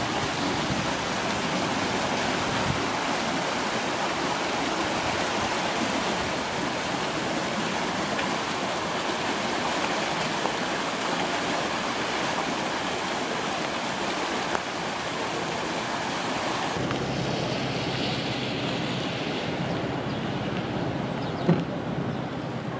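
Swollen, flooded stream rushing fast after heavy rain: a steady, even rush of water. About three-quarters of the way through it cuts abruptly to a duller, quieter rushing, with a single short knock near the end.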